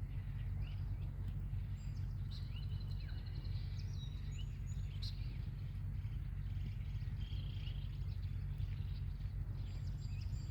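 Scattered short, high bird chirps and peeps, some sliding briefly in pitch, over a steady low rumble.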